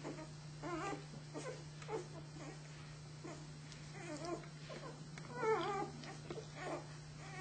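Newborn flat-coated retriever puppies whimpering and squeaking in short calls about twice a second, with one louder wavering cry about five and a half seconds in.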